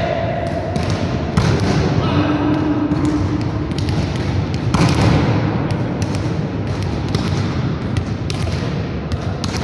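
Volleyballs being hit and landing on the floor of a large sports hall during a spiking drill: irregular sharp slaps and thuds, a dozen or so, echoing in the hall, the loudest about five seconds in.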